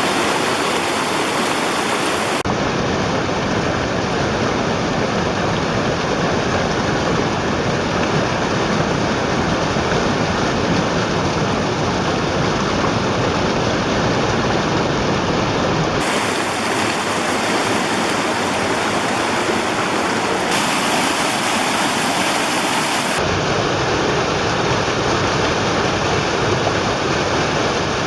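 Running water of a stream spilling over rocks: a steady, even rush. Its tone changes abruptly a few times, about 2 seconds in, in the middle and again near 23 seconds, where takes are joined.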